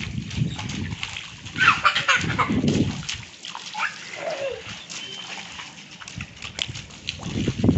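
Bare feet running and kicking through shallow rainwater on a flat concrete roof, splashing in a few louder bursts, loudest about 2 to 3 seconds in. Short high children's cries mix with the splashing.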